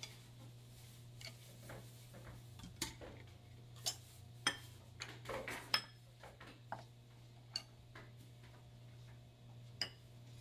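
Small ceramic bowls and utensils being handled and set down on a countertop: a scatter of separate light clinks and knocks at uneven intervals, over a faint steady low hum.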